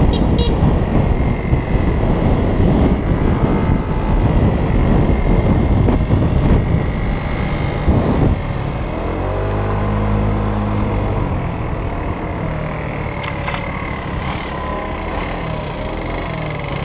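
Wind rushing over the microphone and a moped engine running while riding at road speed. About eight seconds in the wind drops as the moped slows for a turn; the engine note rises and falls, then carries on at low speed.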